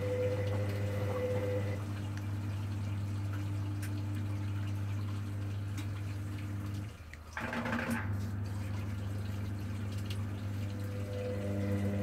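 Hoover Dynamic Next washing machine near the end of its cool-down, its drum turning a sudsy load with a steady hum and the sound of water. The hum cuts out briefly about seven seconds in, followed by a short gush of water before it resumes.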